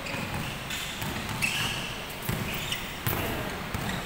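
Basketball bouncing on a hardwood gym floor in irregular thuds, with short sneaker squeaks on the court during play.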